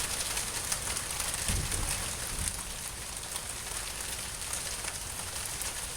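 Steady rain falling, a dense patter of fine drops, with a light wind adding a low rumble.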